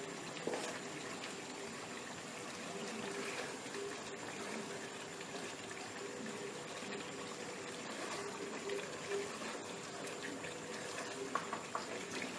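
Goat meat in a wet masala bubbling and sizzling in a karahi as it is sautéed, the water in the masala cooking off before the oil separates. A wooden spatula scrapes and knocks against the pan now and then.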